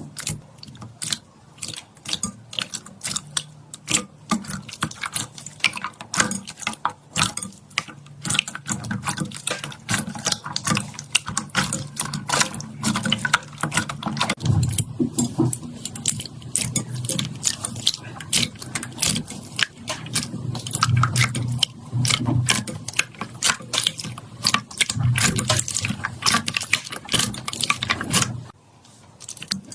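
Slime being squished and kneaded by hand: a dense, irregular run of small wet clicks and pops, dropping off briefly near the end.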